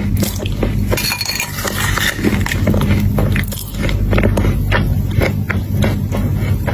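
Close-up chewing and crunching of crunchy chocolate chunks: a rapid, irregular series of crisp crackles and crunches over a steady low hum.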